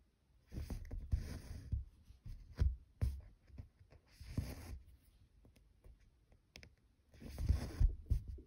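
Needle and embroidery thread drawn through 25-count Zweigart cross-stitch fabric in short swishes, several times a few seconds apart, with a few soft low knocks.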